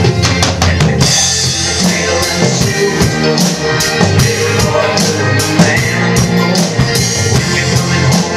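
A large acoustic drum kit played along with a recorded rock song: a quick fill at the very start, a cymbal crash about a second in, then a steady beat with bass drum and cymbals over the band.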